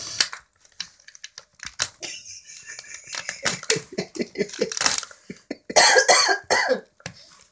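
A West Highland white terrier nosing and rooting through crumpled wrapping paper, with rustling and a run of quick sniffs. About six seconds in come two or three loud cough-like bursts.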